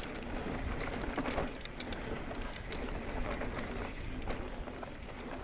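Specialized Stumpjumper EVO 29 mountain bike being ridden over dirt singletrack: a steady rush of tyres rolling on the trail with many scattered clicks and rattles from rocks and the bike.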